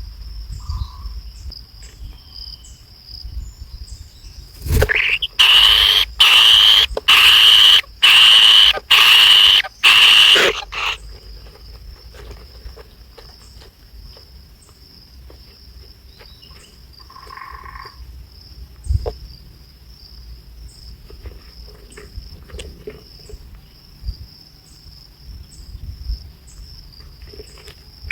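Nestling birds begging: a loud, harsh series of about six calls over some six seconds, starting about five seconds in. A steady high-pitched insect trill runs behind it.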